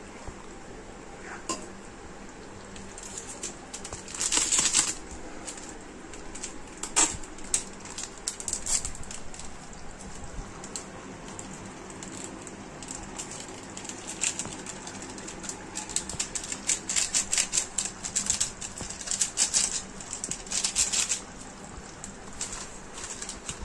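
Metal spoon scraping and clinking against a black kadai as a thick chicken curry is stirred, in scattered bursts of scrapes and clicks, thickest in the last third.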